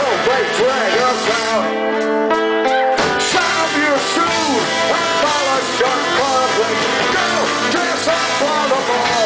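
Live rock band playing a song, with bowed cello, acoustic and electric guitar and drums under a male voice singing. The low end drops out for about a second and a half, leaving held notes, then the full band comes back in about three seconds in.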